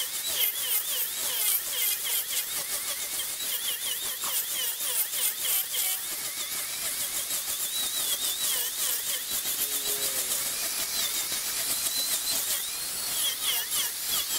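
Wood lathe turning, a tool cutting into the spinning wood blank: a steady hiss of cutting with a high, wavering squeal from the tool on the wood.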